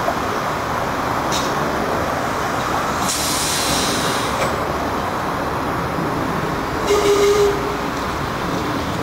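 Vintage streetcar rolling through a curve amid steady street traffic noise, with two short hisses of air typical of its air brakes, one about three seconds in and a louder one with a brief steady tone near seven seconds.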